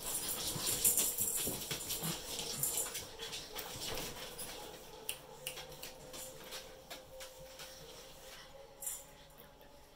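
Two pug puppies scuffling and play-wrestling, paws scrabbling on a cardboard floor with many small knocks and rustles; busiest in the first half, tapering off later.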